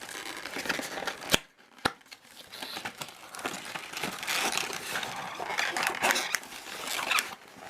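Packaging of a boxed Megaminx puzzle being handled and opened: rustling and crinkling, with two sharp clicks about a second and a half in, then a longer stretch of busy rustling.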